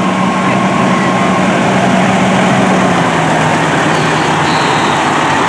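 Fire engine's diesel engine running as the rig rolls slowly past, a steady low hum that drops slightly in pitch about three seconds in, over a steady background din.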